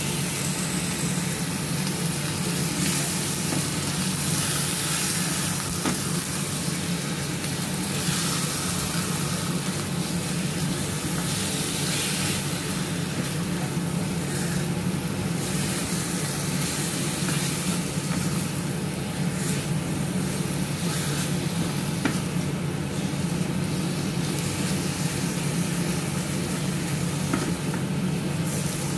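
Chicken pieces sizzling as they fry in hot oil in a wok, stirred and turned with a silicone spatula, over a steady low hum.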